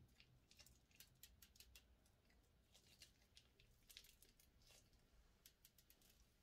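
Faint, irregular sticky clicks and crackles of slime being handled, some in quick runs.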